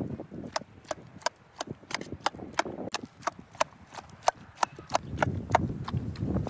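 A long metal spike with a wooden handle stabbed again and again into a steel pot full of whole tomatoes. It gives sharp metallic clicks about three times a second as it hits the pot, over soft squelching from the tomatoes.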